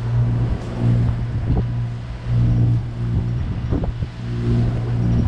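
Sailboat's inboard engine running steadily, its hum swelling and easing irregularly, with wind noise on the microphone.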